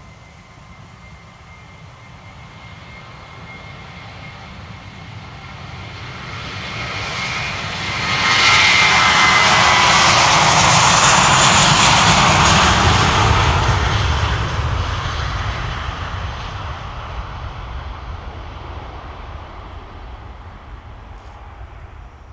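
Twin-engine jet airliner at takeoff power on its takeoff roll. The engine noise, with a thin high whine in it early on, grows louder, jumps up about eight seconds in and stays loudest for several seconds as the jet passes. It then fades slowly as the plane climbs away.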